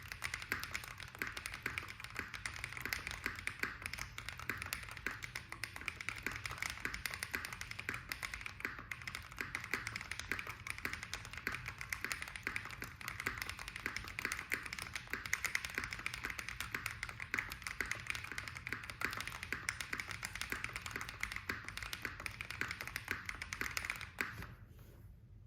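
Fast, continuous typing on a custom mechanical keyboard: a Tofu65 acrylic-case board with a brass plate and Krytox-lubed Holy Panda tactile switches, sitting on a deskmat. The key clicks run densely and evenly, then stop near the end.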